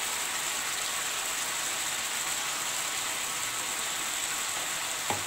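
Pumpkin and potato curry sizzling steadily in oil in a frying pan, with a single knock near the end.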